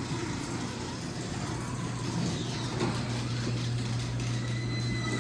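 LiftMaster 3/4 hp chain-drive garage door opener running, its motor humming steadily as the chain drives the door along the rail, with a faint high whine near the end.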